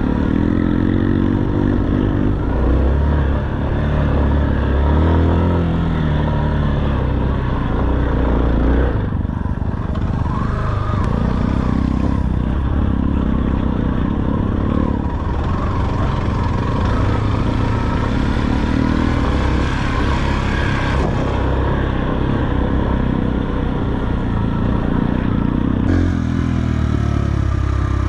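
Motorcycle engine running under load on a trail ride, its pitch rising and falling repeatedly as the throttle is opened and eased off.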